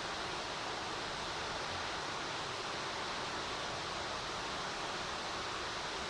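Waterfall plunging into a pool: a steady, unbroken rush of falling water.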